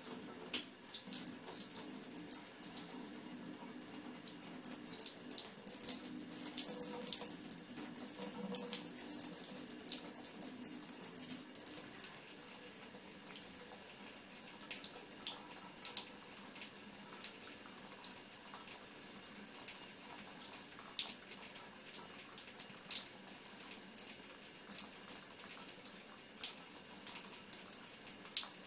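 A thin stream from a bathtub spout runs steadily into the tub, hissing. Many short, irregular wet clicks and splashes come over it as a cat laps at the falling water.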